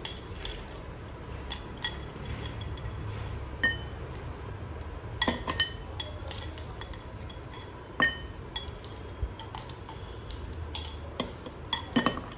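A metal fork and ice cubes clinking against glass as ice is scooped from a glass bowl and dropped into a glass tumbler: irregular sharp clinks with a short ring. They come thickest about five seconds in and again near the end.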